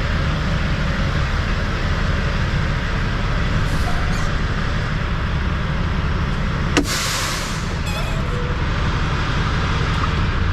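Semi truck's diesel engine running with a steady low rumble. About two-thirds of the way through, a sharp click is followed by a short hiss.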